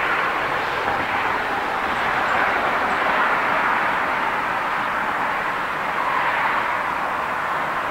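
Steady drone of road traffic, tyre noise from cars and trucks on a busy road, swelling gently as vehicles pass.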